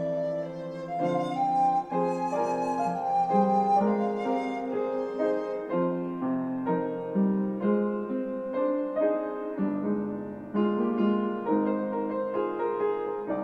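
Recorder and piano duet: the recorder plays a melody note by note over piano accompaniment.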